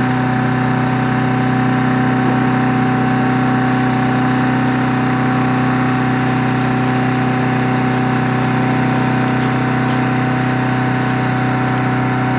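Small engine idling with a steady, unchanging hum, not revving.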